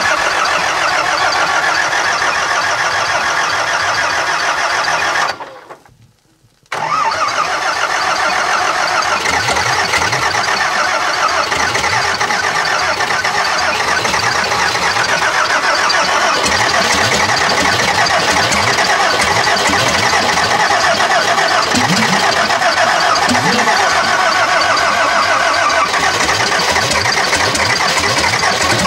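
Old tractor diesel engine, bare of its bonnet, running rough in a cold start, with a flame burning at the intake to help it fire and white smoke pouring out. The sound fades and cuts out for about a second roughly five seconds in, then comes back at full strength.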